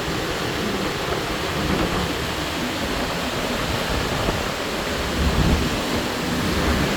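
Wind buffeting the microphone on a ship's open deck: a steady rushing noise with gusty low rumbles, strongest about five seconds in.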